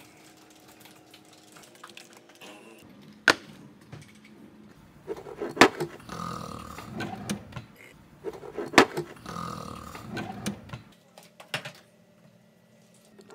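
Sharp clicks and knocks with stretches of rustling handling noise between them, in a quiet room.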